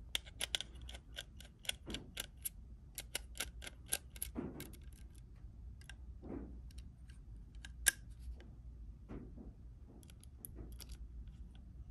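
Precision screwdriver working a small Phillips screw on an M.2 modem card in a metal router case, loosening it: irregular runs of quiet, sharp metal ticks, with a couple of soft handling bumps in the middle and one louder click about eight seconds in.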